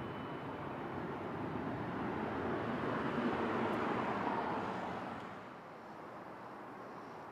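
Jet airliner engines passing: a steady rushing noise that swells to its loudest three to four seconds in, then fades about five seconds in.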